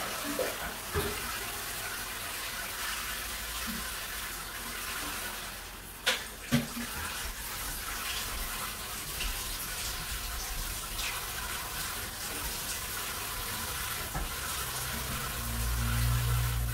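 Water running steadily in a tiled shower stall, with two sharp knocks about six seconds in. A low hum comes in near the end.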